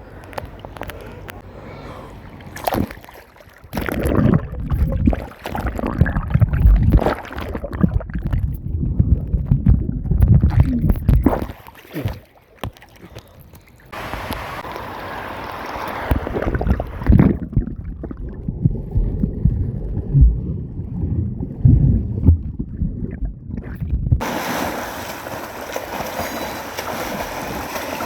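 Pool water sloshing and gurgling around a swimmer, with irregular heavy low splashes. About three-quarters of the way through it changes suddenly to a steady rushing of water.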